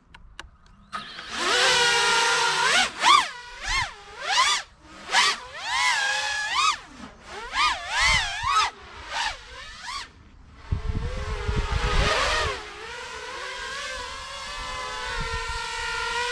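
FPV racing quadcopter's four Xnova 2204 2300kv brushless motors spinning HQProp 5.1-inch tri-blade props. The whine swoops up and down in quick repeated throttle blips, then settles to a steady hovering pitch.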